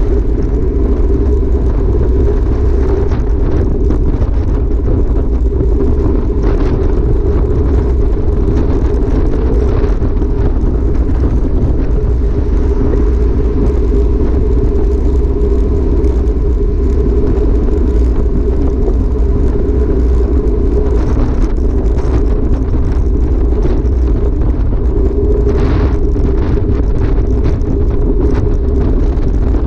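Steady rush of wind on the microphone of a handlebar-mounted camera on a road bike riding at about 40 km/h, mixed with the bike's tyres rolling on asphalt.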